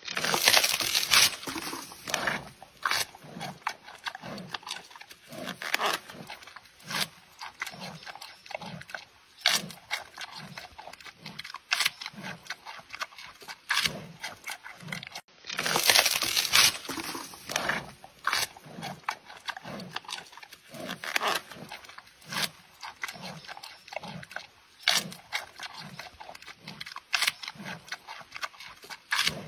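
Giant panda eating bamboo: repeated sharp crunches and snaps as it bites and strips the stalks and shoots, over steady chewing about twice a second.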